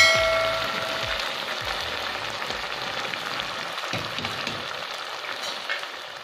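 Food sizzling and frying in a pan, a steady hiss that slowly fades toward the end. At the start a notification-bell chime rings out and dies away over about a second.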